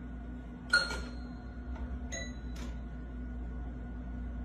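A light clink or ding, about a second in, that leaves a clear ringing tone. A second, lighter clink follows about a second later.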